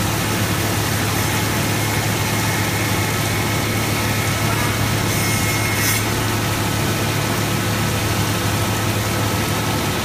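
Multiblade stone cutting machine running steadily: a constant low electric-motor hum with the hiss of cooling water over it, while the saw blades cut stone into lozenge strips.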